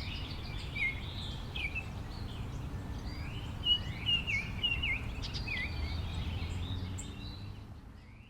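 Songbirds singing repeated clear whistled phrases that slur down and up, over a steady low outdoor rumble, fading out near the end.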